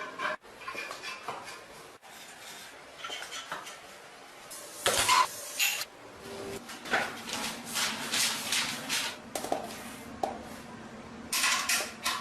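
Metal parts being handled during restoration work, clinking and scraping against each other and the bench, with a louder clatter about five seconds in and a quick run of clinks near the end.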